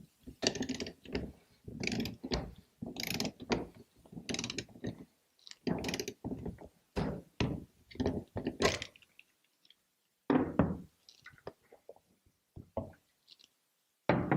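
A 1/2-inch-drive torque wrench ratcheting on a 6-inch IBC cap through a cap installation tool, being worked up to 70 foot-pounds. Repeated ratchet strokes come roughly two a second, then thin to a few lighter clicks after about ten seconds.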